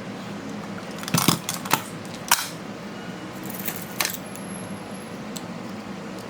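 A few sharp clicks and clatters of small hard objects being handled, in a cluster about a second in, again near two seconds and around four seconds, over a steady low hum.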